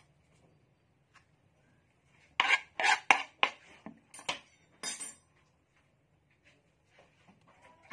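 Kitchen knife and plastic cutting board clattering on the counter: about seven sharp knocks and scrapes in quick succession as the board is tipped up and set back down.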